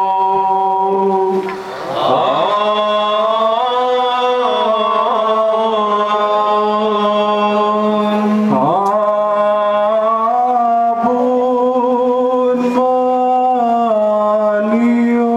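Liturgical chanting: long sustained notes that step from pitch to pitch over a steady low drone, with a couple of brief sliding swoops between phrases.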